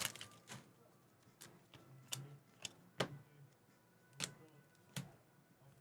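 Trading cards being flipped through one at a time, each card giving a short, sharp click, about seven in all at uneven spacing.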